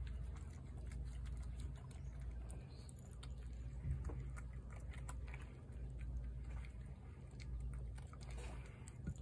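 Cat crunching dry kibble from a bowl: a run of small, irregular crunches and clicks.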